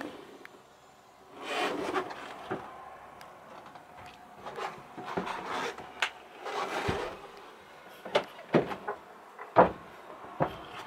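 Handling noises: two longer rubbing, scraping swishes, then several sharp knocks in the last few seconds, the loudest about two thirds of the way through.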